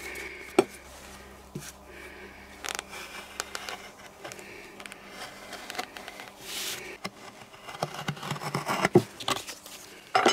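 Shoemaker's knife cutting through a sheet of leather lining on a wooden workbench: irregular scraping with small ticks and knocks of blade and leather on the bench, and a few louder knocks near the end.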